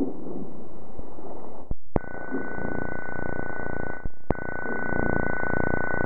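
Seismometer recordings sped up into the audible range: a rushing, rumbling noise of ground motion, broken by sharp clicks about two seconds in and again near the middle and the end, where one station's trace gives way to the next. A thin steady high tone runs under the noise from about two seconds in to near the end.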